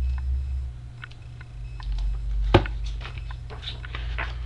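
Faint clicks and rustles of a picture book being handled, with one sharper click about two and a half seconds in, over a steady low hum.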